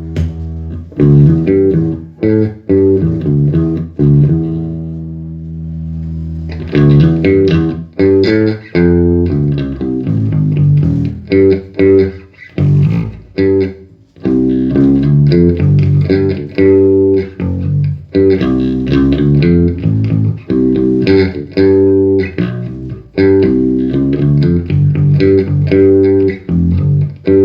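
Five-string Warwick Corvette SS electric bass with a custom two-band EQ preamp, played through an amp's 1x12 Eminence speaker. Plucked bass lines, with one note left ringing and dying away about four seconds in, then quicker runs of notes.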